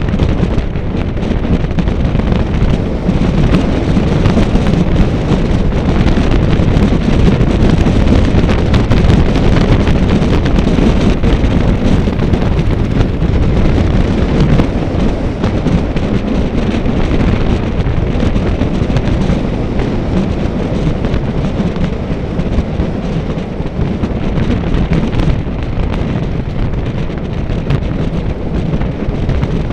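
Wind buffeting the microphone: a loud, steady rumble with a hiss above it.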